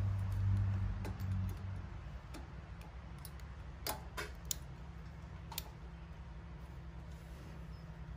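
Small, sharp metal clicks and taps of pliers working the C-clip off a motorcycle footpeg's mounting pin, about eight scattered clicks. A low steady hum runs through the first two seconds, then fades.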